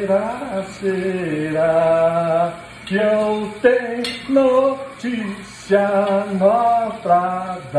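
A man singing unaccompanied, holding long notes in short phrases with brief breaths between them.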